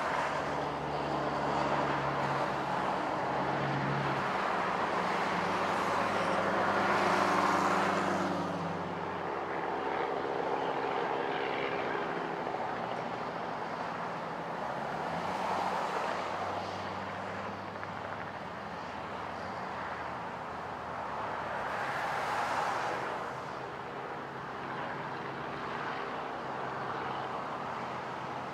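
Road traffic passing, with two louder vehicle passes that swell and fade about a quarter and three quarters of the way in, over the steady engine and rotor sound of a small sightseeing helicopter lifting off.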